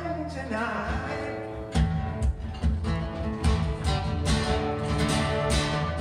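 Live solo performance: a man singing with an acoustic-electric guitar, a sung line in the first second or so, then hard rhythmic strummed chords from about two seconds in.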